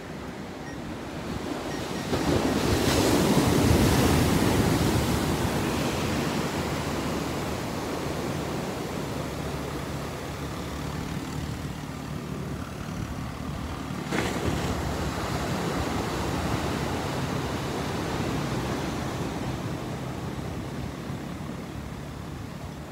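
Small ocean waves breaking and washing up a sandy beach: a steady surf hiss that swells loudest about three seconds in, with wind on the microphone.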